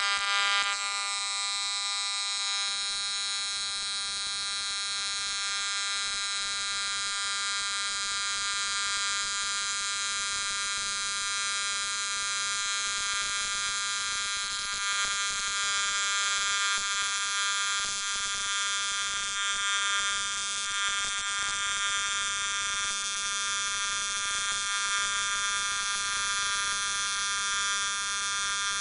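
AC TIG welding arc on aluminum, a steady electric buzz that holds its pitch throughout, with slight swells in loudness.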